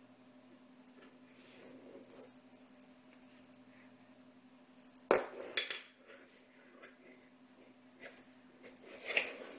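A small plastic baby rattle shaken in short, irregular bursts of rattling, with one sharp knock about halfway through as it hits the wooden floor.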